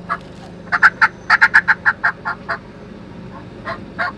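Turkey yelping: runs of short, raspy notes about six a second, with a pause in the middle and a new run starting near the end.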